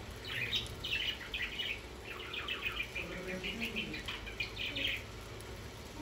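A flock of budgerigars chattering, a dense run of short, quick chirps that eases off near the end.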